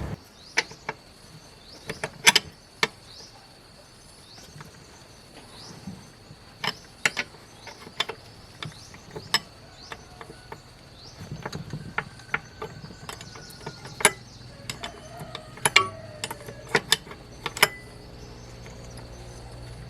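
Irregular sharp metallic clicks and clinks of hand tools and small metal parts being handled, at no steady rhythm, with the loudest strikes about two seconds in and again about two-thirds of the way through.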